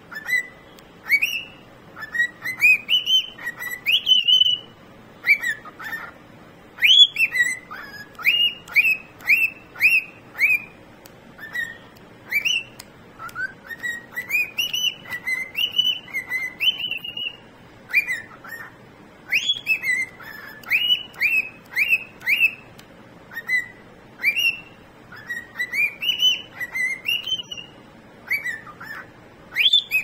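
Cockatiel singing: a long string of short whistled notes, most of them rising quickly in pitch, several a second, in phrases broken by brief pauses.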